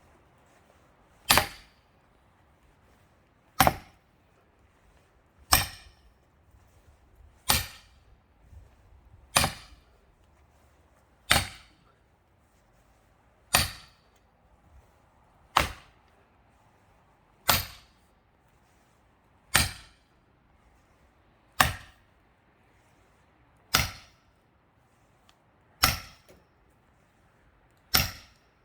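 Sledgehammer striking the heads of axes driven into a pine log as wedges to split it: fourteen sharp, evenly spaced blows, about one every two seconds.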